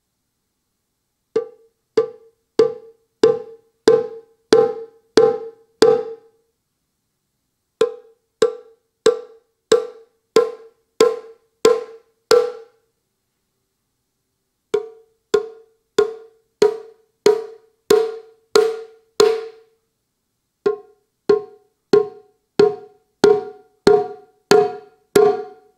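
Roland TAIKO-1 electronic taiko playing shime-daiko drum sounds from its Dual Shime bank: sharp, high, short strikes, evenly spaced at about one and a half per second. They come in four runs of about eight, with short pauses between runs, which step through the bank's four shime tones, two per side.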